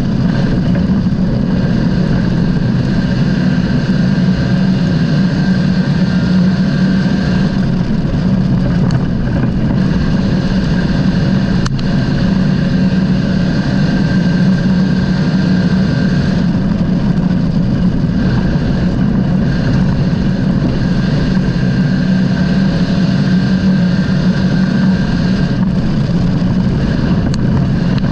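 Dirt-track race car engine running loud and steady at an even pitch, with no revving.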